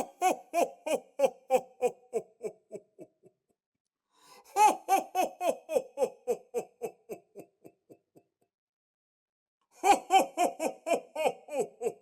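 A man's 'ho ho ho' laugh in the style of Santa Claus, given three times: each round is a quick string of about a dozen 'ho's, loud at first and trailing off. The third round starts near the end.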